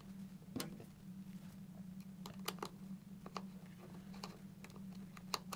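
Faint, scattered light clicks and taps of fingers handling a helmet Bluetooth unit's plastic housing and a small retaining screw, over a low steady hum.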